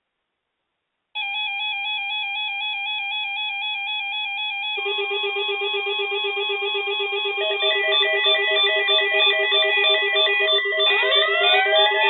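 Electronic alarm tones building in layers: a warbling two-pitch tone starts about a second in, a lower rapidly pulsing tone joins about five seconds in and another beeping tone later, and rising siren-like sweeps come in near the end.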